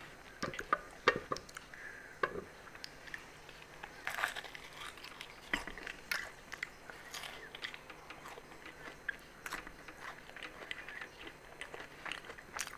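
A person biting into and chewing fried samosas: irregular crisp crunches of the flaky pastry shell, with chewing between the bites.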